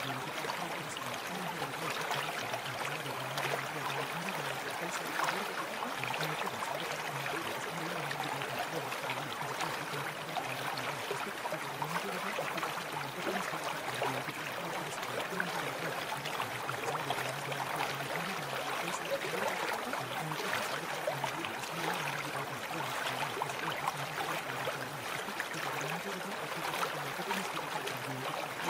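Steady rushing-water sound, like a flowing stream, running evenly without pause. A faint low murmur comes and goes beneath it.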